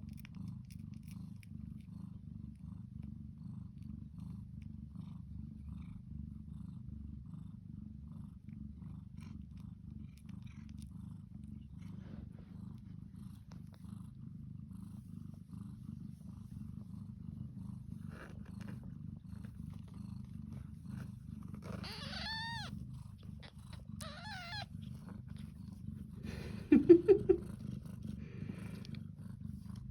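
Devon Rex mother cat purring steadily while nursing her kittens. Partway through there are a few short, high, thin calls, and near the end a brief, much louder pulsing sound.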